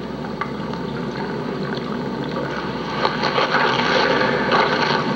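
Film soundtrack playing through a 1974 Wards Airline portable tube television's speaker: a noisy, hissy ambience with a few scattered soft knocks, getting louder about three seconds in.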